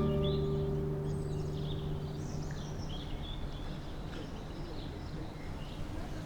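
Small birds chirping repeatedly over a steady low background hum of outdoor noise. A last strummed acoustic guitar chord rings out and fades away over the first couple of seconds.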